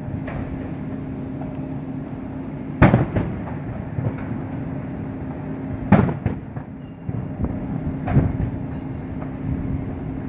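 Aerial fireworks shells bursting, with loud booms about three seconds in, again at six and near eight seconds, and smaller cracks between them, over a steady low hum.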